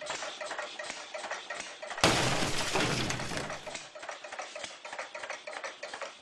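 Glass-shatter sound effect: a run of small cracking ticks, then about two seconds in a loud crash of breaking glass, followed by shards tinkling as it fades.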